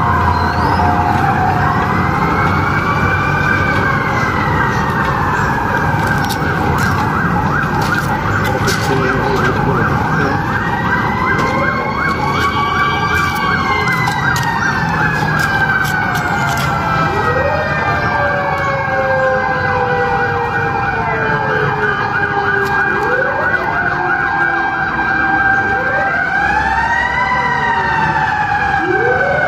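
Several sirens wailing at once, their overlapping tones slowly rising and falling in pitch.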